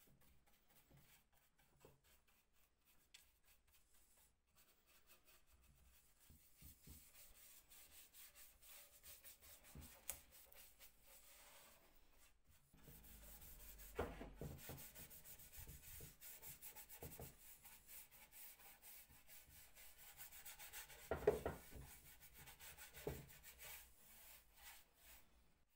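Faint rubbing on wood by hand, getting louder about halfway through, with a few light knocks, the loudest about three quarters of the way in.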